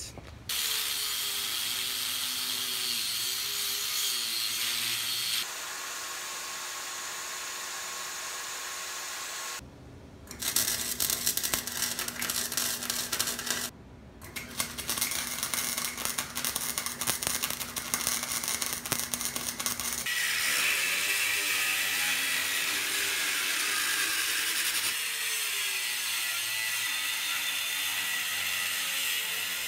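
A run of short metalworking segments split by cuts: a steady power tool running for the first ten seconds, then the irregular crackle of arc welding on steel, then an angle grinder cutting or grinding steel, its pitch wavering under load.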